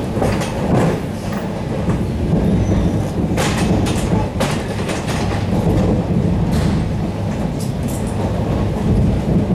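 Ride noise inside an ED9M-K electric multiple unit under way: a steady low rumble and hum from the running gear, with sharp clacks as the wheels cross rail joints several times.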